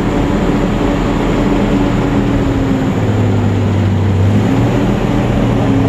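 WWII armored vehicle's engine running loudly as the vehicle drives, heard from on top of its turret; the engine note shifts about halfway through.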